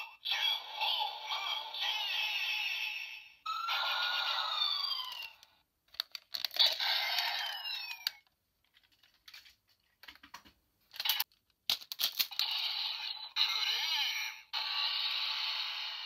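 Electronic sound effects and a synthesised voice and jingle from a DX Patranger combining-robot toy, with siren-like rising and falling sweeps. Midway the toy falls quiet for a few seconds of sharp plastic clicks as parts are snapped together, then its electronic sounds start again near the end.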